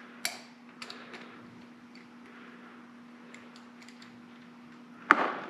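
Scattered sharp clicks from a ratchet with a long extension working a fitting on an M35A2 brake air pack, over a faint steady hum, then one loud, ringing metal clank about five seconds in.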